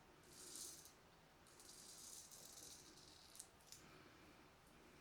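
Filarmonica 4/8 straight razor scraping stubble through lather in short strokes on an against-the-grain pass: a faint, crisp rasping, with two small ticks a little past halfway.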